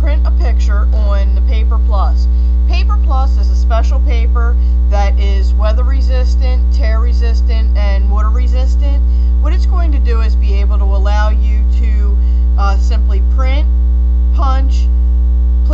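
Loud, steady electrical hum with a ladder of overtones, unchanging throughout, with faint irregular sounds above it.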